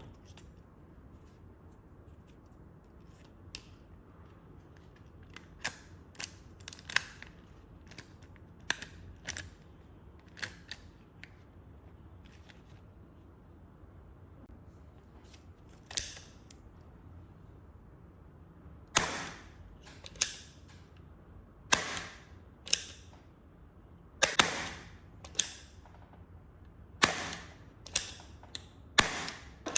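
Toy blaster revolver being fired: first scattered small clicks, then from about two-thirds of the way in a string of sharp shots roughly a second apart, each with a brief ring.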